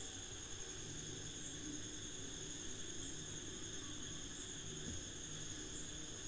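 Insects calling: a steady high-pitched trill, with a brief chirp about every second and a half.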